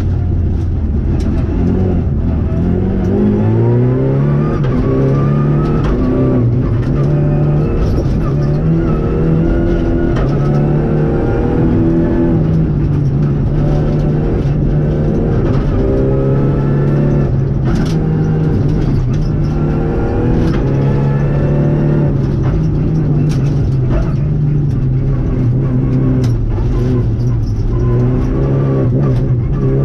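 Renault Clio Rally5's 1.3-litre turbocharged four-cylinder engine, heard from inside the cabin at stage pace: the revs climb in repeated pulls and fall back at gearchanges and corner entries. Occasional sharp clicks and knocks from the car cut through.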